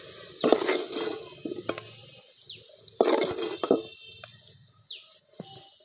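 Fried potato chunks being scraped out of a clay bowl with a wooden spatula and dropped into an aluminium pot, heard as two clusters of knocks and clinks: one about half a second in, the other about three seconds in.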